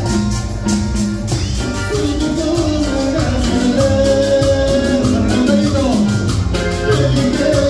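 Live band playing Latin dance music: singers on microphones over accordion, keyboard and percussion, with a steady beat.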